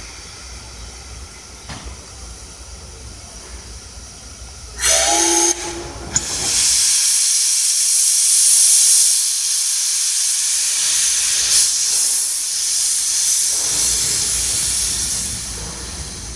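C62 steam locomotive's whistle sounds one short blast about five seconds in. Then steam blows off in a loud, steady hiss for about nine seconds.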